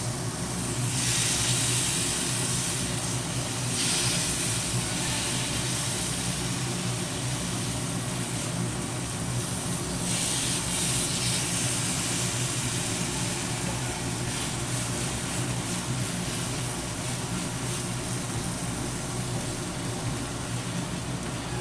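Jumbo prawns in ginger-garlic paste, ghee and butter sizzling in a frying pan, the hiss swelling now and then, over a steady low hum. The paste is caramelising and starting to char.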